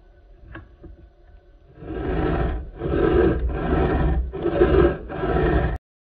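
Flat hand file scraping across a silver ring's bezel and prongs in about five strokes, each under a second long, starting about two seconds in. The sound cuts off suddenly near the end.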